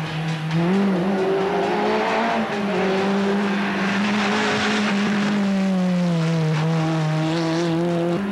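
Rally car engine running hard. Its pitch climbs about a second in, holds high for several seconds, then sinks before a sudden rise at the very end.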